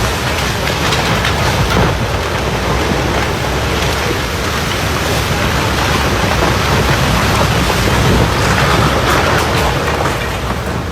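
Heavy rain falling in a storm: a loud, steady hiss with no clear breaks.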